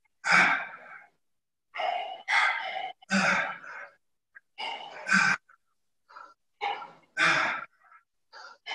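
A man breathing hard through kettlebell swings: short gasping breaths in and loud, forceful breaths out, every second or two, with silence between them.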